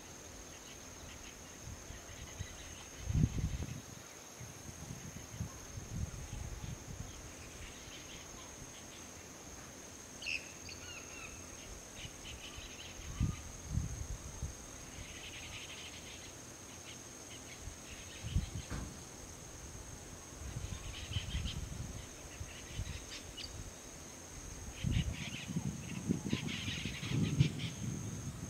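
Tropical forest ambience: a steady high-pitched insect drone, with scattered short bird calls and a few low rumbling bumps, the strongest near the end.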